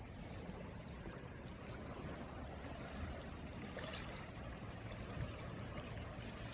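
A river running very high, its flowing water making a steady, even noise.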